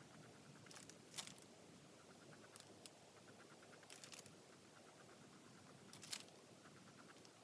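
Faint scratching of a Staedtler Mars Lumograph graphite pencil on Bristol board, a quick run of short strokes, with a few louder scratches about a second in, around four seconds and about six seconds in.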